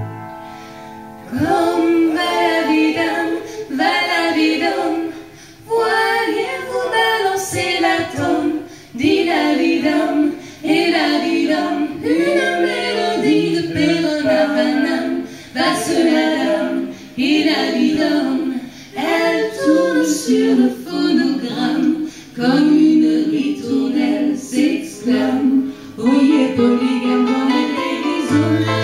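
Several female voices sing a live song in quick, choppy bursts of syllables, with the band's bass dropped out. The bass comes back in near the end.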